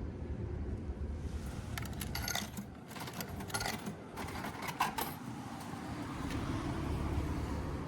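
Coins clinking and jingling as they are fed into a vending machine, a cluster of sharp metallic clicks between about two and five seconds in, over a steady low background rumble.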